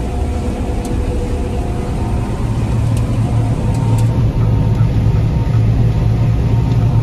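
Combine harvester at work in a soybean field, its engine and threshing machinery giving a steady low drone with a steady mechanical hum above it, heard from the cab. A few faint sharp ticks sound about a second in and again three to four seconds in.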